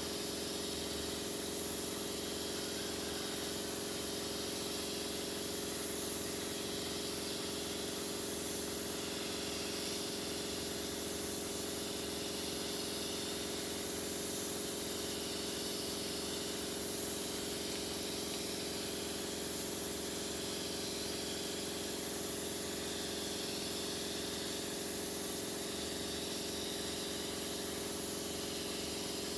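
Spray gun hissing steadily as finish is sprayed onto a wooden bedug drum, the hiss swelling and easing every few seconds, over a steady low hum.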